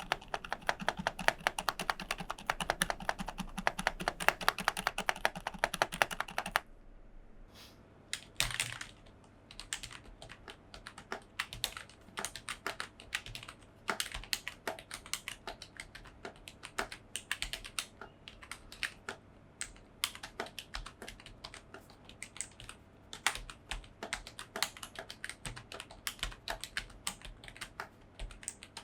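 Logitech G213 Prodigy membrane keyboard being typed on for a sound test, its keycaps stuffed with foam and its stabilizers lubed to damp the clack and rattle. Fast, dense keystrokes for about the first six seconds stop abruptly, then slower, quieter, separate key presses follow.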